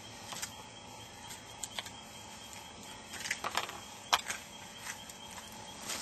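Faint, scattered crackling and rustling of movement on dry, crunchy ground litter, with a few sharper clicks; the sharpest comes about four seconds in.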